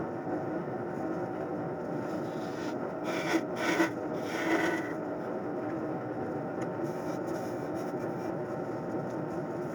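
Wood lathe spinning a glued-up mahogany blank while a turning tool cuts it: a steady rubbing, scraping cut over a constant hum, with a few louder cuts about three and a half to five seconds in.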